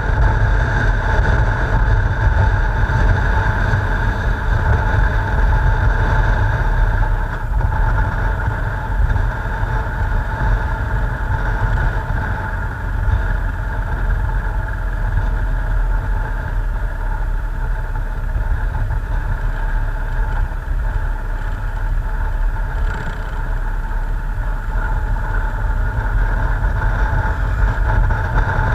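Motorcycle engine running at steady revs while riding, under heavy wind rumble on the bike-mounted camera's microphone.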